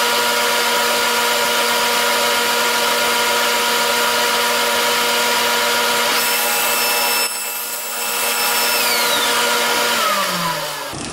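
Table saw running at speed with a steady hum, crosscutting a thin hardwood divider strip to length about six seconds in. Near the end the saw is switched off and its pitch falls as the blade spins down.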